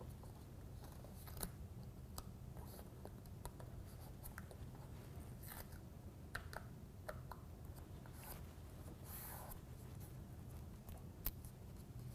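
Faint rustling and light clicks of hands pressing a foam sealing strip along a window air conditioner's plastic side filler panel, over a low steady hum.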